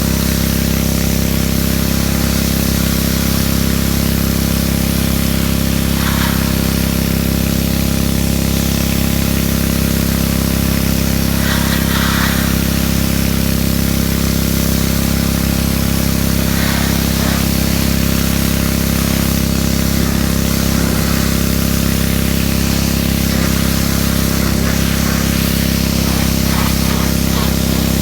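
Pressure washer running steadily with a low, even hum under the hiss of its high-pressure spray, which briefly changes tone a few times as the jet moves across the truck's surfaces.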